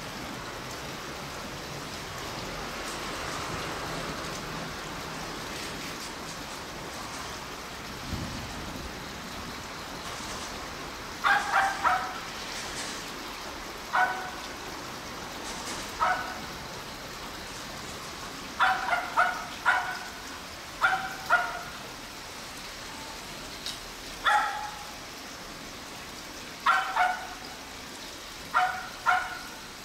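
A dog barking in short groups of one to three barks every couple of seconds, starting about a third of the way in, over a steady hiss of background noise.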